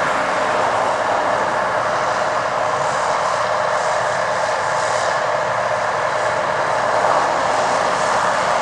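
Massey Ferguson 8570 combine running steadily as it harvests corn: an even mechanical drone with a constant whine through it.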